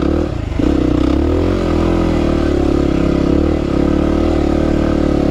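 Single-cylinder dual-sport motorcycle engine running hard under load in deep soft sand. The revs come up about half a second in, then hold fairly steady with a slight waver.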